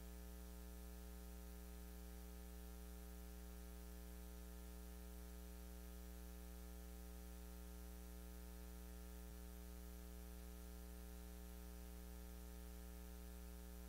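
Steady electrical mains hum with a ladder of evenly spaced overtones over faint hiss; otherwise near silence.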